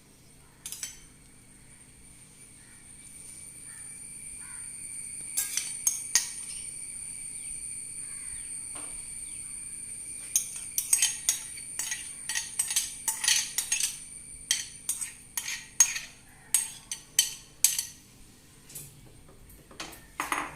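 A cooking utensil clinking and scraping against a frying pan, with a run of quick sharp strikes in the second half, over a steady high hiss.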